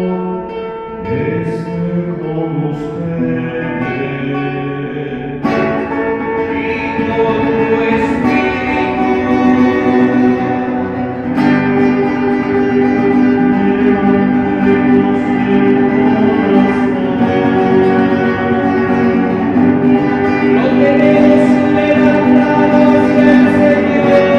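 Liturgical music: singing with guitar accompaniment, growing gradually louder.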